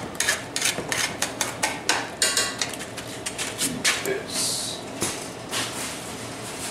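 Metal spatula scraping and clinking against a hand-forged steel frying pan as scrambled eggs are stirred and turned: quick clinks over the first three seconds, then a few more spaced out.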